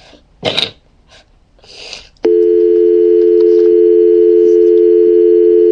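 Telephone dial tone: a steady, loud two-note hum that comes in about two seconds in. It is preceded by a brief loud noise about half a second in.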